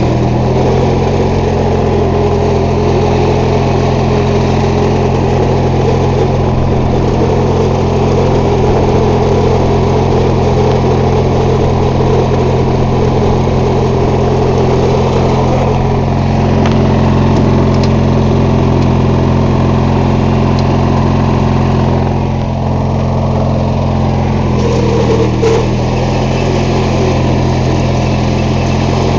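MTD lawn tractor engine running steadily while the tractor is driven. The engine note dips briefly and changes pitch a little about three-quarters of the way through.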